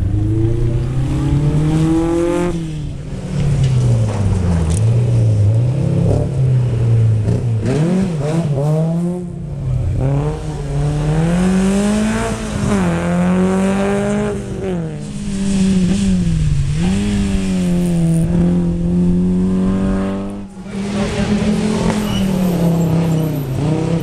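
Historic rally cars being driven hard, one after another, engines revving up and dropping sharply with each gear change.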